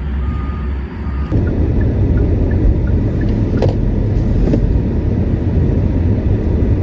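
A car with repeated short electronic beeps over a low hum, then from about a second in, a loud steady rumble of engine and road noise as it drives.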